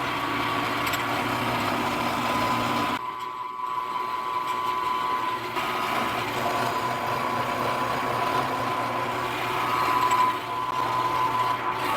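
Milling machine running, its end mill cutting the profile of a part turned on a rotary table: a steady whine with a brief dip about three seconds in.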